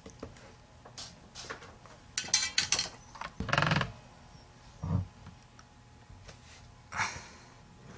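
Scattered handling noises: short clicks, knocks and rustles as tools and the soldered wire-and-LED layers are moved about on the wooden jig. The loudest cluster falls between about two and four seconds in, with single knocks near five and seven seconds.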